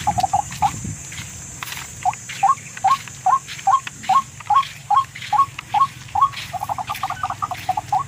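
Tikling (a Philippine rail) calling: a string of short rising notes about two or three a second, breaking into a fast chattering run near the end.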